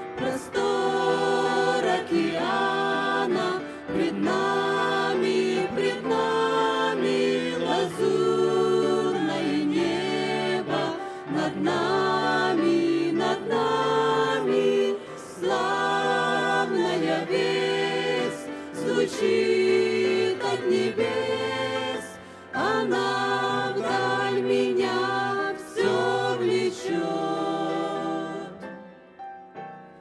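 Mixed vocal group of men and women singing a Russian-language hymn together into handheld microphones, held notes in phrases, the sound dropping briefly about two-thirds of the way through and fading near the end.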